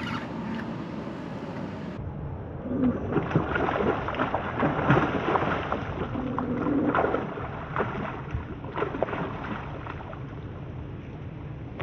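Water splashing and sloshing, loudest in the middle few seconds, as a barracuda strikes a hooked mangrove snapper at the surface.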